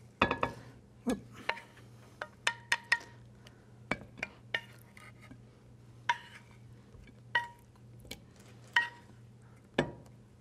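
Wooden spatula and non-stick frying pan knocking and clinking against each other and a ceramic platter as glazed tofu slices are lifted out: scattered sharp taps and clinks, some ringing briefly.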